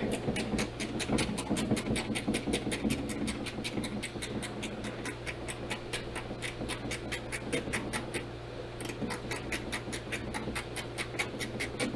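Small ratcheting screwdriver clicking steadily, about five clicks a second, as it works a screw out, with some scratchy rubbing of hand and tool against the trim.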